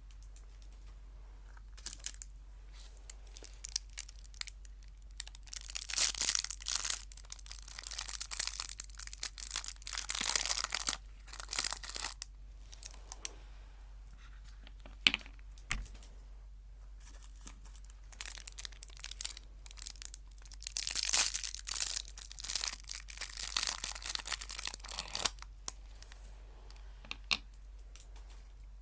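Close-up crinkling and tearing of a sweet wrapper, in two long spells of dense rustling with scattered single crackles between them.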